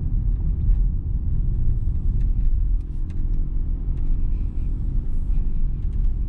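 Steady low rumble of engine and road noise inside the cabin of a 2022 Mitsubishi Xpander Ultimate CVT pulling uphill in D.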